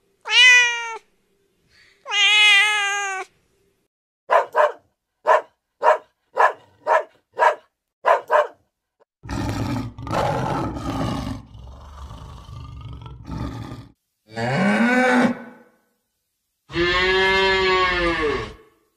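A cat meows twice, then comes a quick run of about ten short, high calls. A lioness growls and roars, a rough, low sound lasting several seconds. Near the end a cow gives one long moo.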